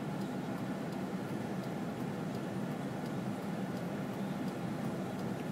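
Steady low hum of a car with its engine running, heard inside the cabin.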